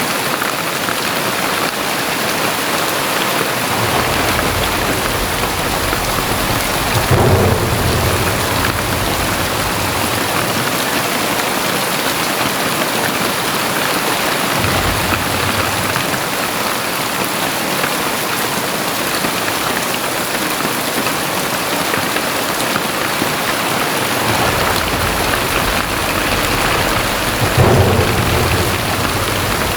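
Heavy rain pouring steadily, with two low rolls of thunder that swell and peak, one near the start and one near the end.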